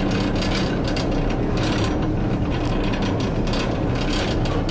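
Ferry boat's engine running steadily, with a fast irregular rattling clatter over its low hum.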